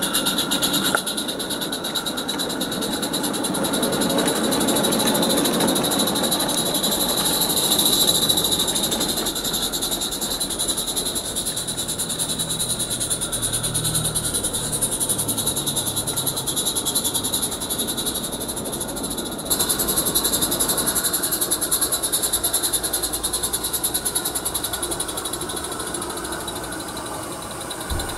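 Roundhouse Dylan garden-railway live steam locomotive running with a train of coaches: a rapid, steady chuffing exhaust with hiss. The sound steps up suddenly about two-thirds of the way through.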